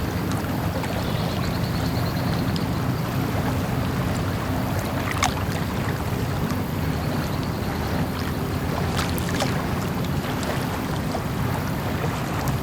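Small-harbour ambience: a steady low hum under an even wash of noise, with a few short sharp knocks, one just under halfway through and two close together a few seconds later.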